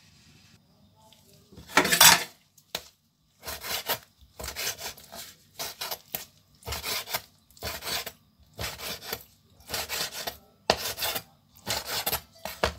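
Chef's knife slicing raw chicken into strips on a wooden cutting board, starting about two seconds in. About ten slicing strokes come roughly one a second, each a short scrape of the blade through the meat onto the wood, and the first stroke is the loudest.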